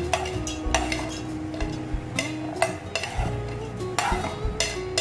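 Metal spoon scraping and clinking against a plate as peanuts, garlic and ginger are pushed off into a steel grinder jar, a sharp clink every second or so, over background music.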